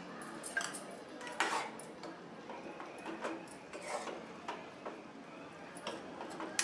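Steel spoon stirring and scraping chicken keema in a metal kadai, clinking against the pan in irregular strokes.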